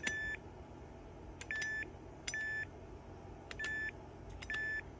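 Buttons on an Aurora Multimedia WACI-PAD6 keypad being pressed, five presses about a second apart, each a click followed by a short high beep from the keypad.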